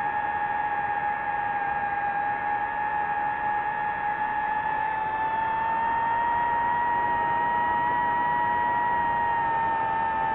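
DJI FPV drone's motors and propellers whining steadily over a hiss, the pitch rising slightly about halfway through and easing back near the end.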